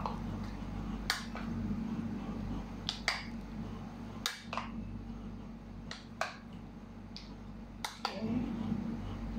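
A spoon clicking against a plastic mixing bowl now and then, about eight sharp clicks at irregular intervals, as sliced squid is stirred in a marinade. A steady low hum runs underneath.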